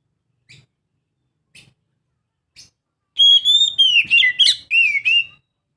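Young oriental magpie-robin (kacer) singing. Three short faint calls about a second apart come first. About three seconds in comes a loud song phrase of clear whistles: a long high held note, then quick gliding and falling notes.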